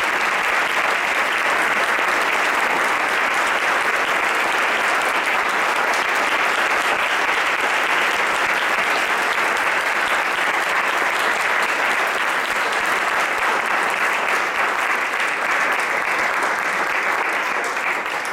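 Audience applauding steadily and at full strength, a sustained ovation after a reading.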